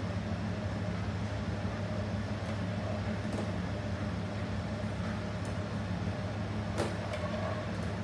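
Steady machine hum of a commercial kitchen's ventilation, with a few light clinks of a metal ladle against a steel pot as sauce is scooped, the sharpest near the end.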